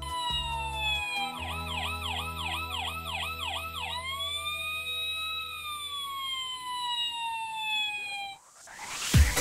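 Electronic emergency siren sounding. First a falling tone, then a fast yelp of about three sweeps a second, then a slow wail that rises and falls. Just before the end it gives way to a short rushing whoosh.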